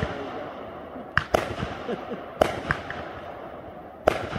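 Aerial fireworks launched from a ground tube, firing shot after shot: sharp bangs roughly every second and a quarter, two of them in quick doubles, over a steady crackle.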